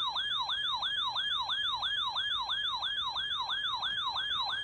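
Electronic siren-style alert tone: a clean pitch that sweeps rapidly downward and snaps back up, about four times a second, in a continuous yelp.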